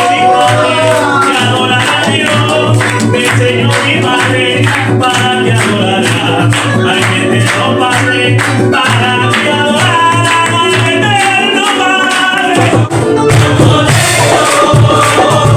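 Live music: singing over an acoustic band. About 13 seconds in the music breaks off briefly and a new, fuller passage begins.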